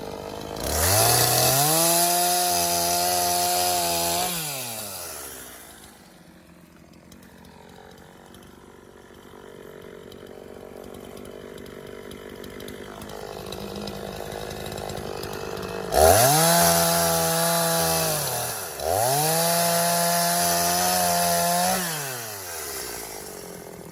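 Echo two-stroke chainsaw throttled up to full speed and held there for a few seconds as it cuts into a log, then dropping back to a low idle for about ten seconds. Near the end it revs up again twice in quick succession, with a brief dip between, before falling back to idle.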